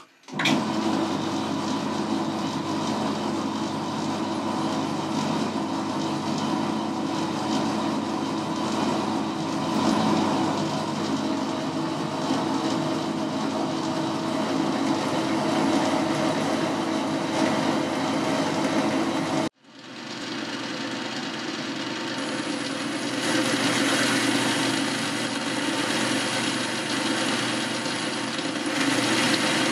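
Boxford lathe running steadily while a cutting tool faces the end of a metal die blank held in a four-jaw chuck. The sound cuts out abruptly just after the start and again about twenty seconds in, then carries on.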